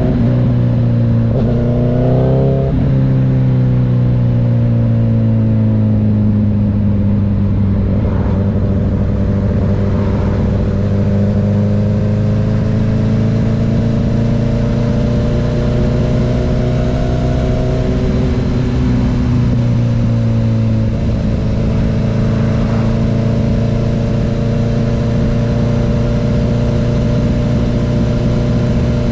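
Honda CB1000R's inline-four engine running under way at cruising speed. About two seconds in, the revs rise and drop as it shifts up. The engine note then climbs slowly and falls again about twenty seconds in.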